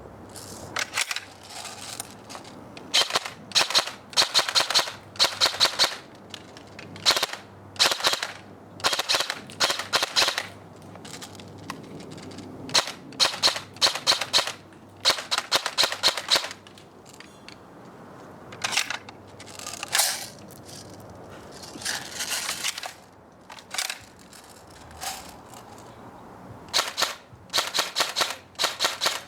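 Airsoft rifle firing repeated short bursts of rapid shots, each burst a quick string of sharp cracks less than a second long, with brief pauses between bursts.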